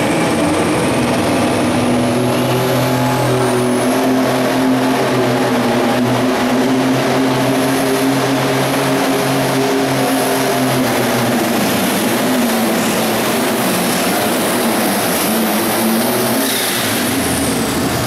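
Light limited super stock pulling tractor's turbocharged diesel at full throttle under the load of a weight-transfer sled, with a high turbo whistle over the engine note. In the last third the engine pitch sags and wavers as the sled bears down, and near the end the whistle and engine note drop away.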